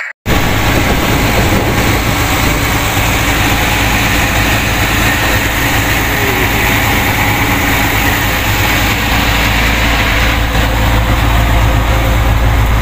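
Fishing boat's engine running steadily as a deep drone, under a loud, even rushing noise. It starts abruptly a moment in.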